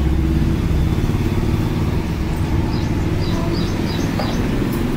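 Street traffic heard from a balcony: the low rumble of passing motor vehicles, strongest in the first second or so, with a run of short high chirps in the middle.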